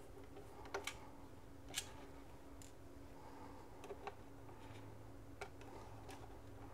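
Faint, sparse clicks of a small T4 Torx screwdriver working snug screws out of a DJI Avata 2 drone's plastic frame. There are about five light ticks, spaced a second or so apart.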